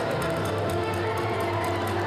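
Instrumental music playing steadily.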